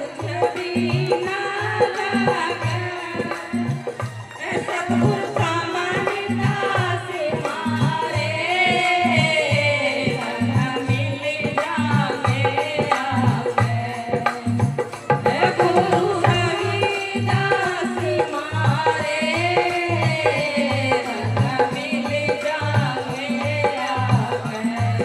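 Devotional song: a singer's voice with a gliding melody over a steady, even hand-drum rhythm.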